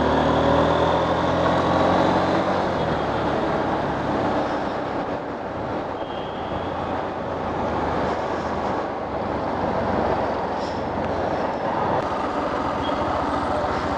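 Honda X-Blade single-cylinder motorcycle engine running under way, its note climbing a little over the first couple of seconds. Steady wind and road rush on the bike-mounted microphone.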